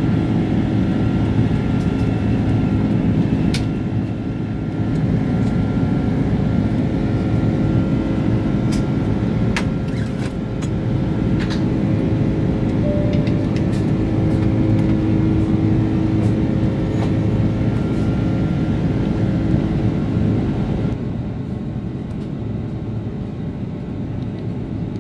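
Cabin noise of an Airbus A330-300: a steady low rumble of engines and airflow with faint steady whine tones and occasional sharp clicks and rattles. About 21 seconds in, the higher hiss drops away and the noise eases slightly.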